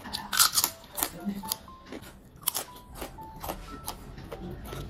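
A crisp ridged fried chip being bitten and chewed close to the microphone: a loud burst of crunches just after the start, then smaller crunches and chewing. Soft background music plays underneath.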